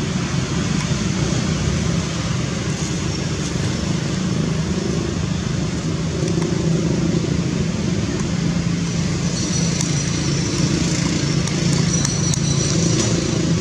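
Steady motor-vehicle engine hum, like nearby road traffic, with a low drone throughout. Faint high-pitched tones join in from about nine seconds in.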